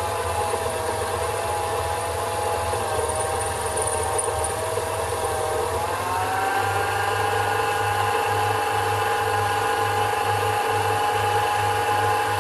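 Sherline micro lathe running under cut, its motor and spindle whining steadily as the tool turns a large-diameter steel workpiece. The whine steps up in pitch about halfway through.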